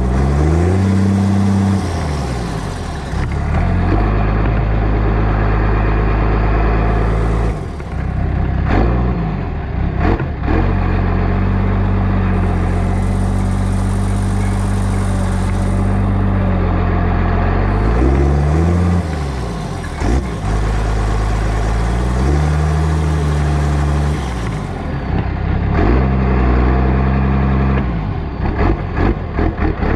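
New Holland 7840's six-cylinder turbo diesel running through a straight-pipe exhaust, heard close to the exhaust stack. The tractor pulls steadily, with the revs sagging and picking back up several times.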